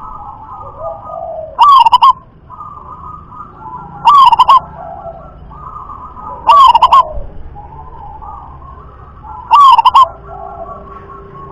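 Local zebra dove (perkutut) singing, four loud, short warbling coo phrases about two and a half seconds apart, with fainter bird calls continuing in between.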